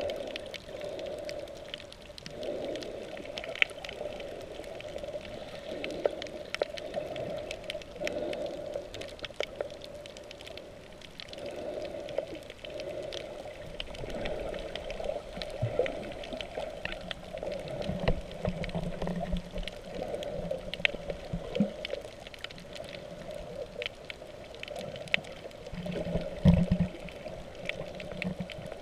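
Muffled underwater sound heard through a waterproof camera housing: a wavering water rush with many scattered sharp clicks and crackles. A deeper hum with thuds comes in about two-thirds through and again, louder, near the end.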